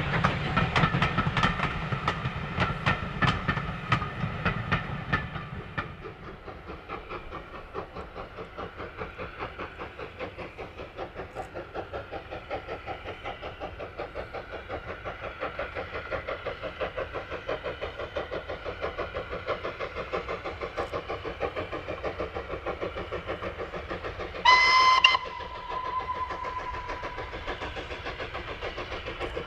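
LSWR T9 4-4-0 steam locomotive working a train of coaches: a passing train's clatter fades over the first few seconds, then a steady fast beat of exhaust grows slowly as the engine approaches. About 25 seconds in it gives one short whistle blast, the loudest sound, whose note lingers a moment after.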